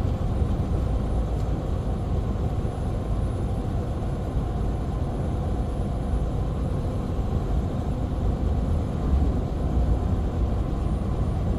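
Tractor-trailer cruising on the highway, heard from inside the cab: a steady low engine drone with road noise.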